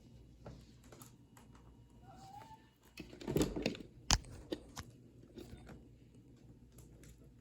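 Cats chewing and crunching their food: a run of small crunching clicks, a louder stretch of eating noise about three seconds in, and one sharp click just after.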